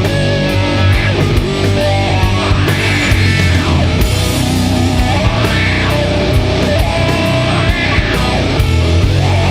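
Doom metal music: distorted electric guitars over a heavy bass low end and a drum kit, played at a loud, even level.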